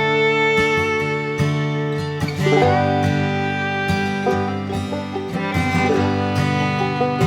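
Background music: an upbeat acoustic string tune with plucked guitar, in a bluegrass or country style.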